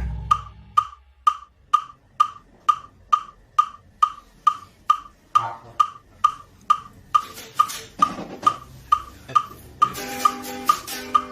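A steady wood-block click, about two ticks a second, counting in a backing track. Sustained keyboard chords come in over it near the end.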